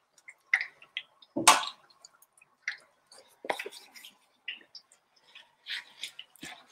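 Battered zucchini flowers frying in hot sunflower oil in a pan: scattered crackles and pops, with a few louder knocks, the loudest about a second and a half in.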